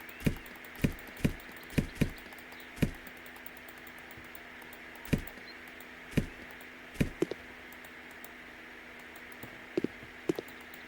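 Irregular knocks and taps, about a dozen of them in clusters with pauses of a couple of seconds between, over a steady low hum.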